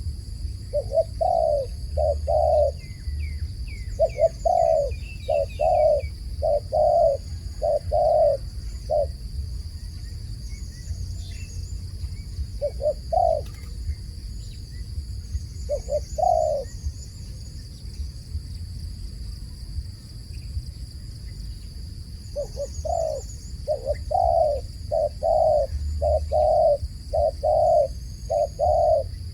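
A dove cooing in runs of short, quick coos, many in a row. A few scattered coos fall in the middle, then another long run comes near the end.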